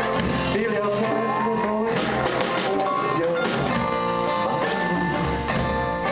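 Live band playing with no vocal line: acoustic guitar with keyboard and drums.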